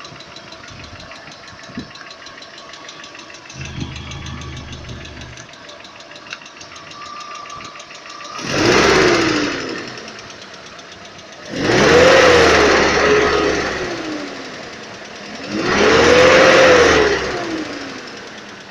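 ZMZ-406 inline-four engine idling with a rapid, even knocking from under the valve cover. It is then revved three times, each time rising in pitch and falling back to idle.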